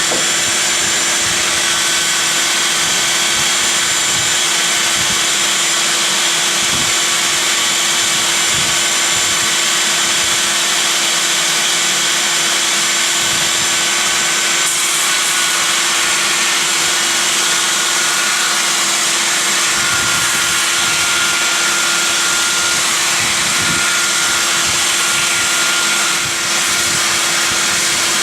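Porter-Cable 371 compact belt sander running with a 60-grit belt, sanding a wooden mallet head while a vacuum draws dust through its hose. A loud, steady whine whose higher tones shift in pitch a few times as the work is pressed on and eased off.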